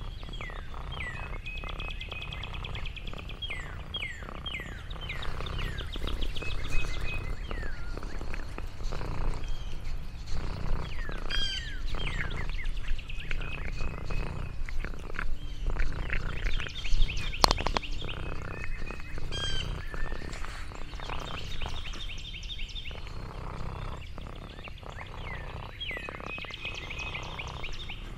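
Songbirds chirping and trilling again and again, with quick sweeping calls and rapid trills. Under them runs a steady low rumble with scattered rustling clicks, and there is one sharp click about two-thirds of the way through.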